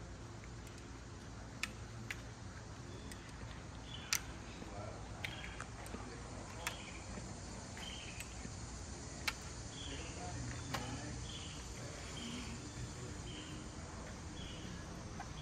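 Summer outdoor ambience: a steady low background noise with a few sharp clicks, and from about halfway a regular series of short, high chirps a little under a second apart, typical of an insect or bird calling.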